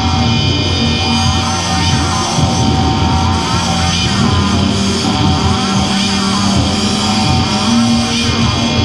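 Live industrial ambient noise music: a dense, loud, steady drone with held tones and recurring pitch glides that rise and fall.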